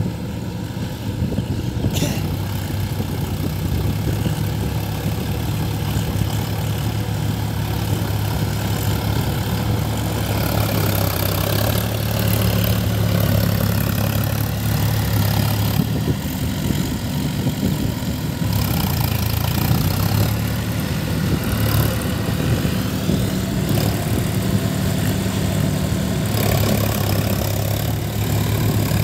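Diesel tractor engine running steadily as a low drone while the tractor tills a muddy field, with more hiss joining from about ten seconds in.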